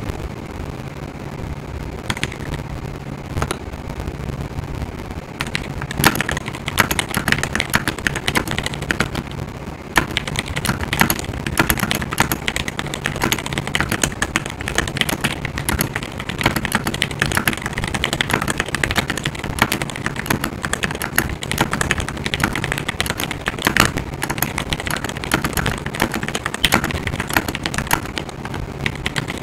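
Typing on a GMMK Pro mechanical keyboard fitted with Everglide Aqua King linear switches. Scattered keystrokes for the first few seconds give way to fast, continuous typing from about six seconds in. A steady low hum from the microphone, called fuzzy noises, runs underneath.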